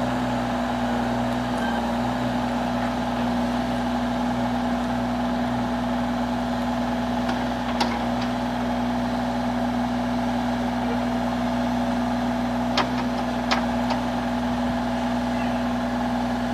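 Hitachi Zaxis 35U-5N mini excavator's diesel engine running steadily at a constant pitch while the boom and arm are worked. A short knock about halfway through and two more near the end.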